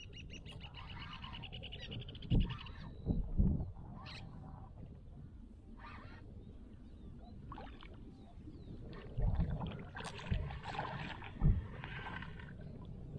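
Fishing rod and reel being handled in a breeze: several short, low thumps and knocks over a steady low wind rumble on the microphone. At the start there is a rapid, even, high ticking for about two seconds.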